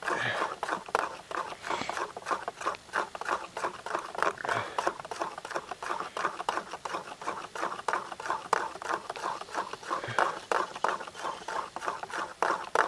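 Hands mixing wet egg and water into flour in a bowl to make pasta dough: a quick, uneven run of pats and squishes, several a second.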